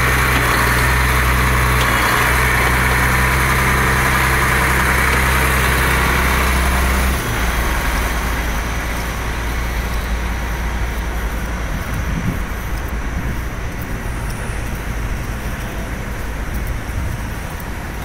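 Diesel farm tractor engine idling close by with a steady low drone that cuts off suddenly about seven seconds in. After that comes quieter road traffic: tractors and a pickup truck driving along a wet street, with tyre hiss.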